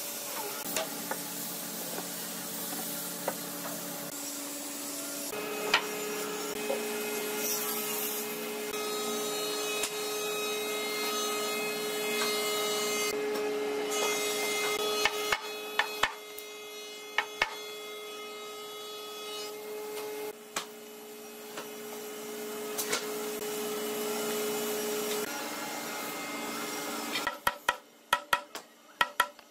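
Large red hardwood boards being handled and fitted together, giving scattered wooden knocks over a steady hum of several tones. Near the end a hammer strikes a dovetail joint in quick repeated blows, about four a second, driving it home.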